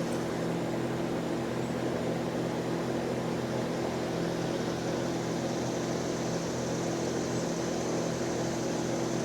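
Air conditioner running with a steady hum. Above it is a faint, steady high-pitched buzz, the unidentified noise that the recordist suspects is an insect such as cicadas.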